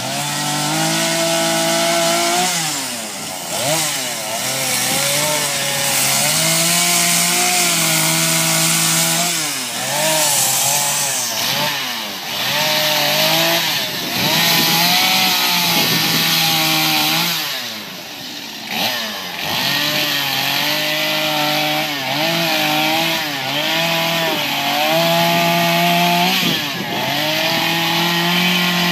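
Two-stroke chainsaw carving into a wooden stump, the engine revving up and easing off over and over as the chain bites, with short drops to a lower pitch between cuts.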